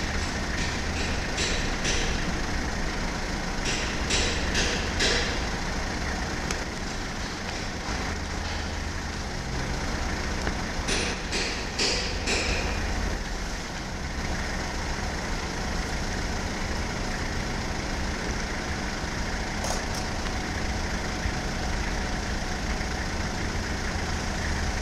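Jungheinrich EFG218K three-wheel electric forklift working, its motors giving a steady hum. Several short hissing bursts come at intervals, with a click near the end.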